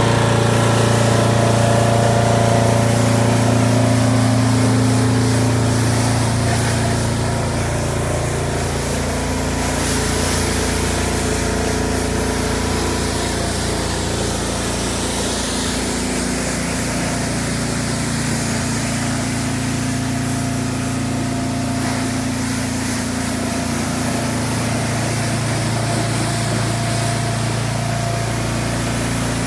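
Pressure washer running steadily with a motor drone, and the hiss of water spraying from its wand onto a car's bodywork.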